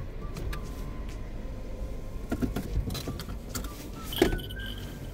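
Car running at low speed heard from inside the cabin, a steady low rumble with scattered light clicks and one sharper click about four seconds in. Faint background music runs underneath.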